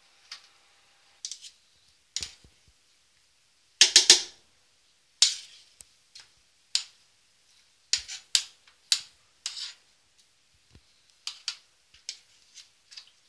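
A metal skimmer clinking and tapping against the rim of a stainless-steel pot while foam is skimmed off boiling broth: a string of sharp, irregular clinks, the loudest about four seconds in.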